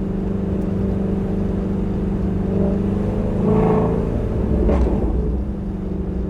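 Shelby GT350R's 5.2-litre flat-plane-crank V8 running steadily while driving. The engine note swells louder and brighter a little past halfway and then settles back.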